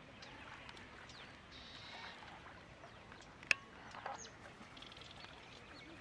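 Faint wetland bird chorus: many short chirps and whistles from several birds. A single sharp click about three and a half seconds in is the loudest sound, followed at once by a brief louder call.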